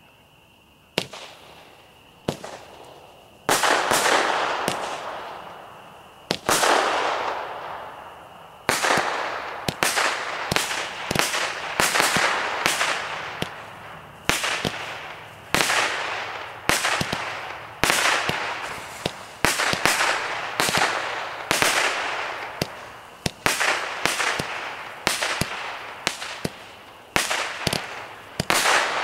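200-gram consumer firework cake firing a string of shots, starting about a second in and coming about once a second, each sharp bang followed by a noisy trail that fades over a second or two.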